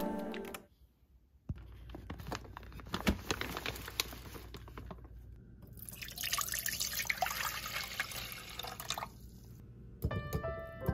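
Leftover soup poured from a bowl into a stainless steel saucepan, a splashing pour of about three seconds, after a few light knocks and clicks. Soft music fades out at the start and piano music comes in near the end.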